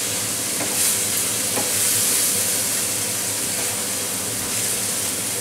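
Onion and garlic paste sizzling steadily in hot oil in a frying pan as it is stirred and fried down with a wooden spatula, with a few light scrapes of the spatula in the first two seconds.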